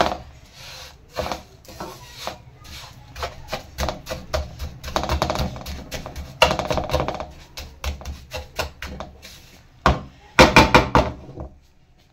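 Wooden spatula scraping and knocking against a nonstick frying pan as a dry, crumbly roasted besan mixture is stirred: a run of irregular scrapes and taps, with the loudest strokes near the end.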